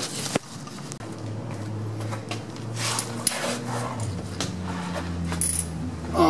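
Scattered light metallic clinks and knocks from a floor jack being set under a truck's fuel tank, the sharpest about half a second in, over a faint steady low hum.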